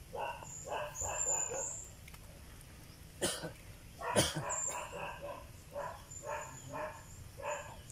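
A dog barking repeatedly, with two sharp, loud barks about three and four seconds in and quicker short barks after. Birds chirp faintly in the background.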